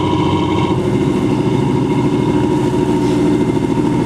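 Boat engine running steadily as the vessel manoeuvres, with propeller wash churning the water.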